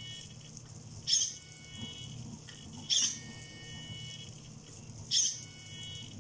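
The servo of a homemade magnetic piston engine gives a short whirring pulse three times, about every two seconds, once at each end of the piston's stroke, each followed by a faint high tone that fades away. Underneath runs a steady low hum from the engine and its 1:15 gear train to the generator, turning slowly at about 15 RPM under heavy load.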